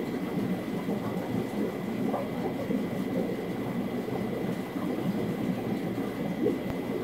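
Aquarium sponge filter bubbling steadily, with a faint steady high tone underneath.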